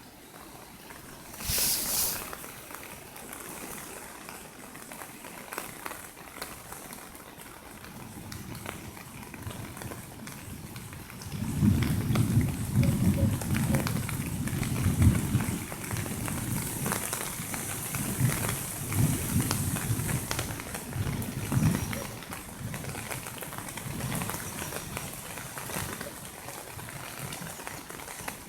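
Heavy rain pouring down with a steady hiss. A brief loud burst about two seconds in, and a long stretch of loud, uneven low rumbling in the middle.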